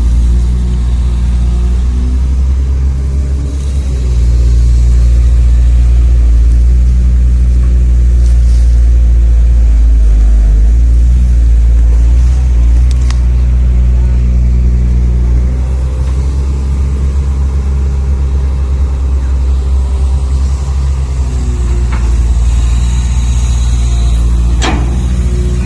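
Engine sound from a radio-controlled model truck, a simulated diesel running steadily. It gets louder about four seconds in, and two sharp clicks come near the end.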